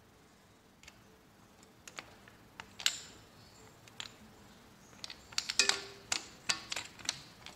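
Socket ratchet clicking in short, uneven runs as it tightens the oil filter cover bolts. The clicks are sparse at first and come thickest in the second half.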